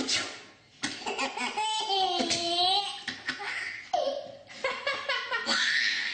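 A baby belly-laughing at a sneeze, in several fits with a long, high squealing laugh near the middle.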